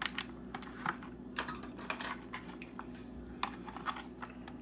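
Plastic RAM packaging being cut open with a knife and handled, making irregular sharp clicks and crackles.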